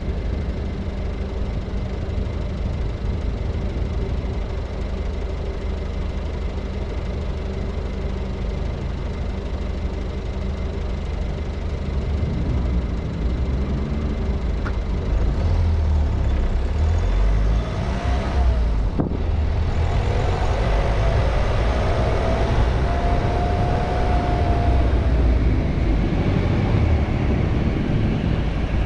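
A car driving through city streets: a steady low rumble of engine and tyre noise, a little louder from about halfway in, with a faint wavering whine drifting in and out in the second half.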